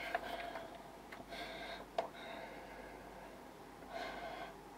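A person breathing faintly in and out through the nose, three soft breaths, with one sharp click about two seconds in.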